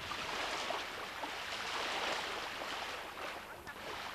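Lake water washing on a sandy beach, small waves lapping, with some splashing in the shallows.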